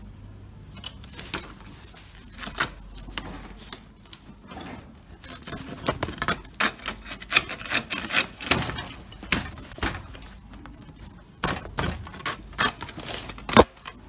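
Dogs scratching and rummaging after a mouse: irregular scrapes, knocks and clatters of hard objects, busier in the second half, with one sharp knock near the end the loudest.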